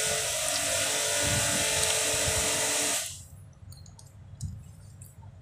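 A motor-driven machine running with a steady whirring hiss for about three seconds, starting suddenly and cutting off sharply. After it come a few faint clicks of a hand screwdriver driving screws into a plastic valve body.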